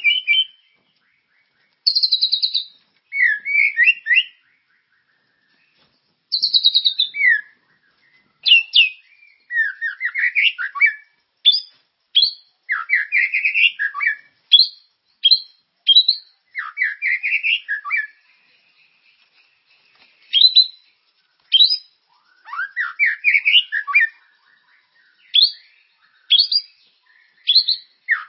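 A murai batu (white-rumped shama) in full song: loud, varied phrases of rich whistles, quick rising and falling glides and rapid chips, delivered in bursts separated by short pauses.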